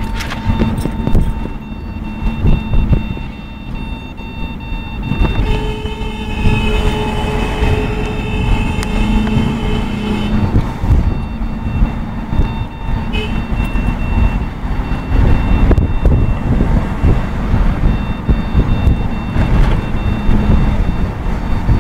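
Vehicle driving, heard from inside the cabin: steady engine and road rumble. A steady high tone joins for a few seconds, starting about six seconds in.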